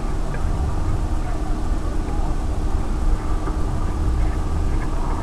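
Wind buffeting the microphone with an uneven low rumble, over the faint steady drone of a distant powered parachute's Rotax 447 two-stroke engine.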